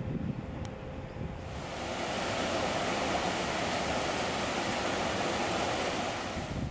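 Water rushing steadily through a mill sluice channel, starting suddenly about a second and a half in. Before it, low wind rumble on the microphone.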